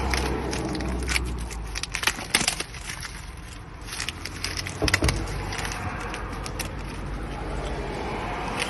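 New brake pads being taken out of their plastic packaging and handled: crinkling plastic with a run of sharp clicks and clinks, busiest about one to three seconds in and again around five seconds in.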